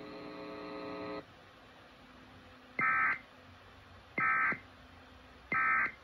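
Emergency Alert System end-of-message: three short, identical raspy data bursts about a second and a half apart, the coded signal that closes the alert. Before them, a steady electronic hum stops about a second in.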